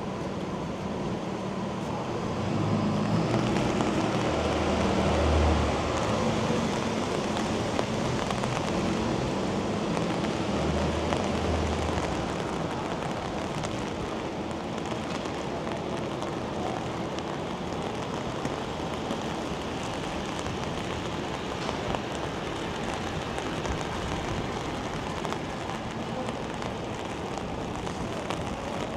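Steady hiss of rain and wet city traffic. From about three seconds in to about twelve, a vehicle's low engine sound swells louder as it passes, then fades back into the rain.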